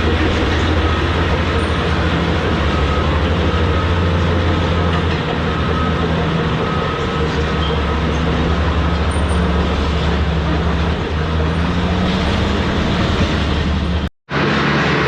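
Heavy diesel equipment running steadily under load, a deep engine drone with rattling machine noise over it. The sound cuts out for an instant near the end.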